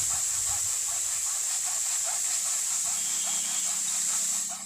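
Steady high-pitched hiss of outdoor ambience, with a short call repeating evenly about two or three times a second.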